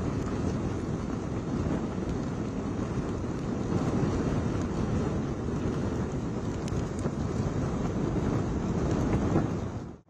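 Gusty cyclone wind buffeting the microphone, a steady low rumble, with rain falling over open floodwater.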